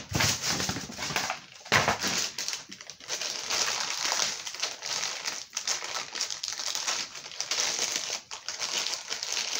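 Packaging crinkling and rustling as the parts of a toy helicopter kit are rummaged through, with sharper crackles now and then.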